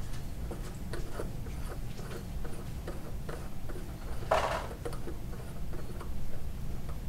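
Kanger Subtank's metal parts being handled and screwed together by hand: small irregular clicks and ticks of the threads and steel sections, with one brief louder rustle about four seconds in, over a low steady hum.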